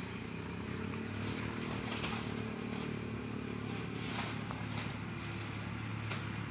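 A steady low mechanical hum, like a motor running, with a few short scuffs or clicks scattered through it.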